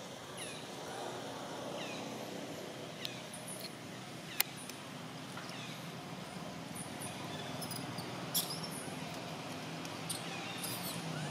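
Short, high falling chirps repeating over steady outdoor background noise, with a few sharp clicks, the loudest about four and a half and eight and a half seconds in.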